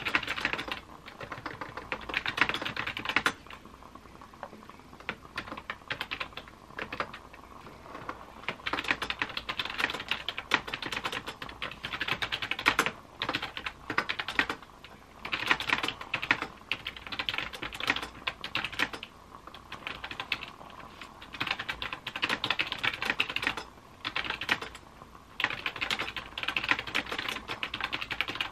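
Fast clicky-clacky typing on a laptop keyboard, a MacBook Air's, in runs of rapid key clicks lasting a few seconds each with short pauses between them. There is a longer lull in the typing a few seconds in.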